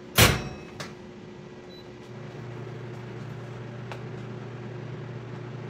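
Uniram URS500 solvent recycler being started: a sharp click near the start, then about two seconds in a steady low hum starts up and holds as the distillation cycle begins.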